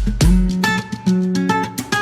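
Background music led by guitar: plucked and strummed notes over deep bass notes in a repeating pattern.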